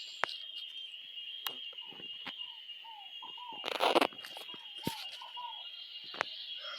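Outdoor rural ambience: a steady high-pitched insect drone, crickets or cicadas, with soft short bird calls repeating and a few sharp clicks. A brief loud noisy burst about four seconds in is the loudest moment.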